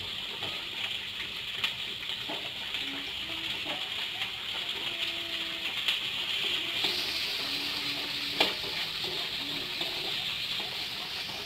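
Shallots, garlic and green and red chilies sizzling in hot oil in a wok, stirred with a wooden spatula that scrapes and knocks against the pan. The sizzle grows stronger about seven seconds in, and one sharp knock of the spatula a little later is the loudest sound.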